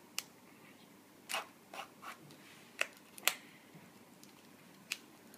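Handling noises: a scatter of short, sharp clicks and scrapes, about eight in all, the loudest a little after three seconds in, as objects are picked up and moved by hand.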